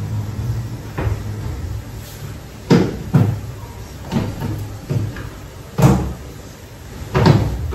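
Kitchen cupboard doors and storage containers being opened, shut and set down: a string of separate knocks and clunks, the loudest about three seconds in and near the end.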